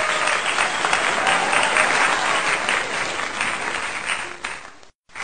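Applause from many hands clapping steadily, breaking off for a moment near the end and then starting again.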